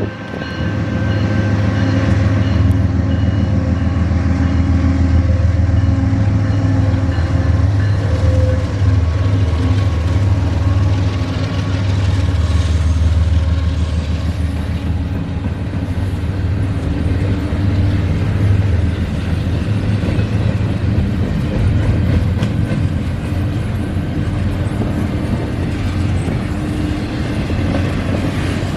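Canadian National diesel freight locomotives hauling an intermodal train past: a loud, steady engine drone over the rumble of the train rolling on the rails.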